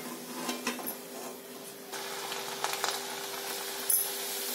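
Hot oil sizzling quietly in a steel kadhai while a puri deep-fries, with a few light metal clinks of a perforated steel slotted spoon against the pan, the sharpest near the end. A steady hum runs underneath.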